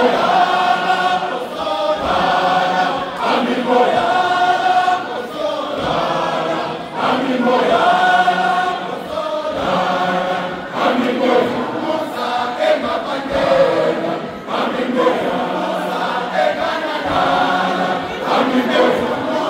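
Large men's choir singing a gospel hymn together, in short phrases about every two seconds.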